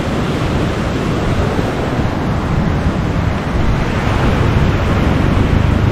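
Sea surf breaking on the shore, a steady wash of noise, with wind rumbling on the microphone.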